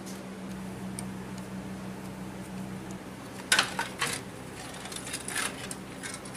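Metal objects clinking and clattering: a cluster of sharp knocks and rattles about halfway through, over a steady low hum.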